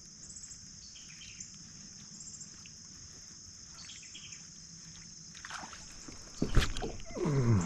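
Crickets chirring in a steady high drone. Near the end there is a single sharp knock, followed by a short grunt or exclamation from a man's voice.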